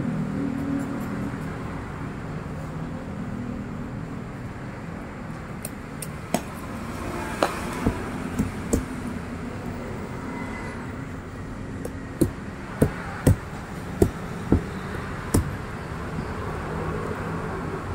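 A steady background rumble, like distant road traffic, with a scatter of short sharp taps or knocks, about a dozen, bunched in the second half.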